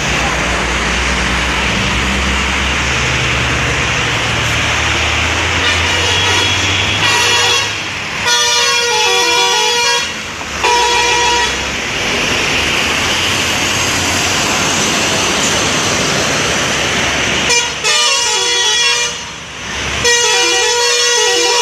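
A bus's 'telolet' multi-tone musical air horn playing a repeated tune, coming in about seven seconds in and breaking off twice briefly. Before it, a loud rushing noise with a low engine rumble.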